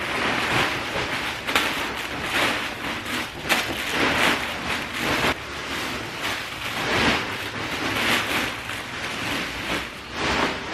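Plastic rustling and crinkling in irregular swells as poly-mailer packages are handled and pushed into a large plastic sack.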